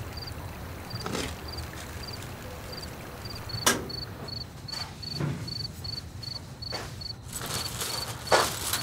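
Crickets chirping steadily, about three chirps a second. Over them come a few clicks and knocks, the sharpest a little over a third of the way in, as a metal door is unlatched and opened.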